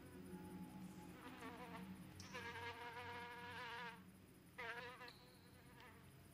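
A flying insect buzzing close by, its whining pitch wavering. It swells in over about a second, holds for roughly two seconds, breaks off, then makes a brief second pass. A low steady hum lies underneath.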